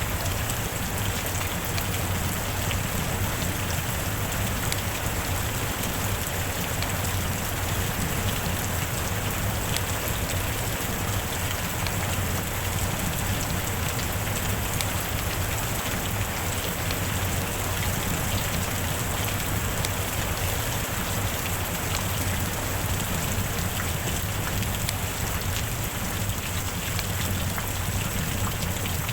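Steady heavy rain: an even hiss of rainfall with a dense patter of individual drops striking a surface.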